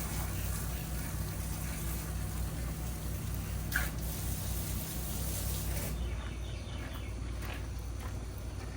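Soft wash pump running with a steady low hum while water sprays from the hose in a hiss; the spray hiss drops away about six seconds in.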